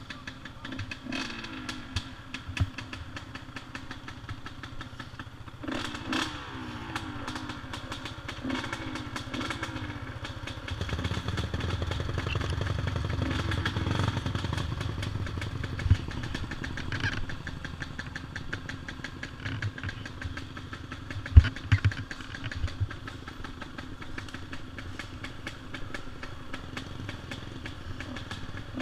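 Dirt bike engine running along a rough woodland trail, with ATV engines close ahead, short revs, and knocks and rattles from the bumps. The engine sound gets louder about eleven seconds in and eases off a few seconds later.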